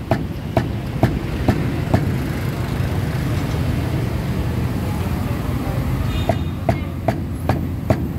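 Sharp knocks, about two a second, each with a short ring. They stop for a few seconds midway and start again near the end, over a steady low rumble of traffic.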